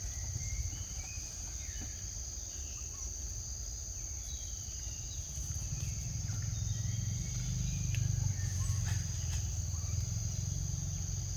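Steady high-pitched drone of insects such as crickets or cicadas, with a low rumble underneath and faint short chirping calls now and then.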